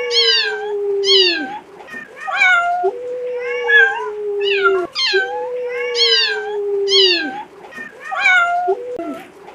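An animal's calls repeating over and over: short, falling high cries over a longer held tone that drops away at its end, the same pattern coming back about every two seconds.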